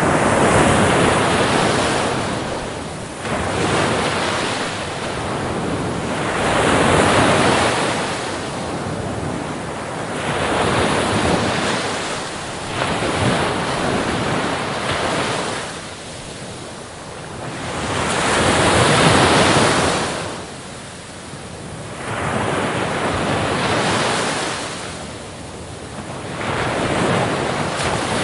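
Sea waves rushing in and falling away, the surf swelling and fading every four to six seconds.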